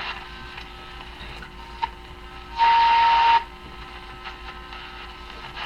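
Travler 5002 tube radio just coming alive on reduced line voltage, putting out hiss and static with a steady low hum. About two and a half seconds in, a loud whistling tone with a burst of static lasts under a second.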